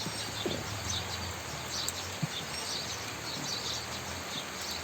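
Small birds chirping repeatedly over a steady outdoor background hiss.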